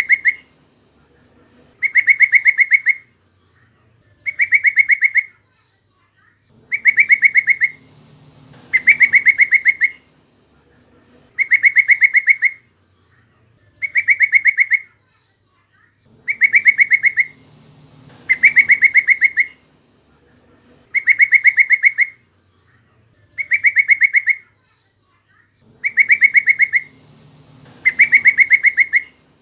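Yellow-vented bulbul (trucukan) calling: about a second-long burst of fast, repeated notes, given over and over about every two seconds.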